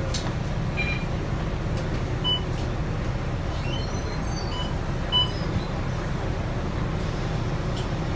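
Interior running noise of a Volvo B9TL double-decker bus: a steady low rumble from the engine and drivetrain, with a couple of faint, short high ticks.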